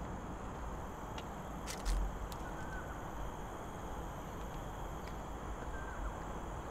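Steady outdoor background noise with faint short bird chirps, a few sharp clicks and a low thump about two seconds in.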